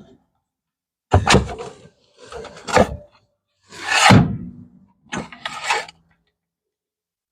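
Several separate clunks and scrapes from tools and heavy metal parts being handled while a 904 automatic transmission is being removed: four or five short knocks about a second apart, the one in the middle the loudest.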